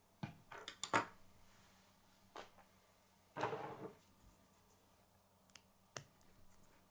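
K'nex plastic pieces clicking as they are handled and a rod is snapped into a connector: a cluster of sharp clicks about a second in, a short rustle of pieces in the middle, and a couple of single clicks near the end.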